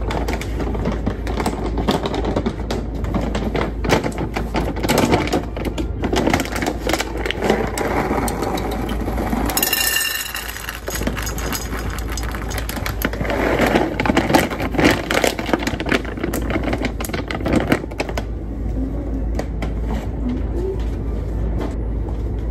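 Dry kibble poured from a plastic bag into stainless steel pet bowls, clattering and rattling in two busy spells, with the bag crinkling. A short high squeak comes about ten seconds in.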